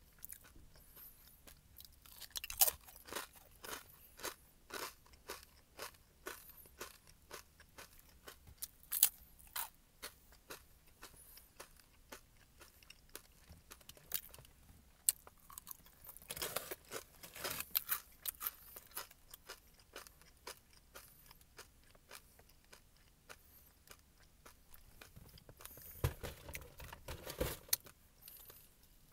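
Crisp multi-grain baked crackers being bitten and chewed: irregular runs of dry crunches with a few sharper, louder snaps.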